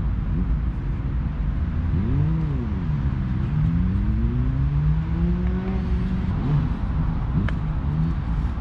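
Road traffic going round the roundabout: car engines accelerating and passing, their pitch rising and falling over a constant low rumble.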